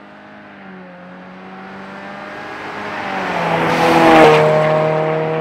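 A 2020 Subaru Ascent's turbocharged 2.4-litre flat-four, breathing through a Nameless Performance muffler-delete catback exhaust and mid-pipe, approaches and passes at speed. The exhaust note grows steadily louder, drops in pitch with a rush of tyre noise as the car goes by about four seconds in, then fades as it drives away.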